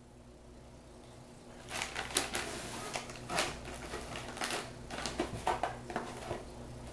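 A cat rummaging with its head in a cardboard box of toys and treats, crinkling the plastic treat packaging: irregular crackling and rustling that starts about two seconds in.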